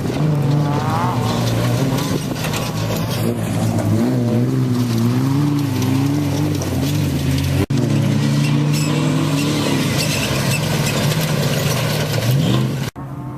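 Off-road race vehicle engine running hard, its pitch rising and falling as it revs. The sound cuts off abruptly twice, once past the middle and once near the end.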